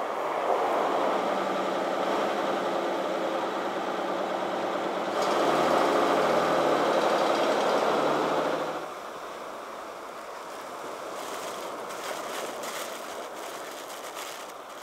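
Diesel engine of a Tata bus running, louder for a few seconds from about five seconds in. About nine seconds in it gives way to a quieter, steady background.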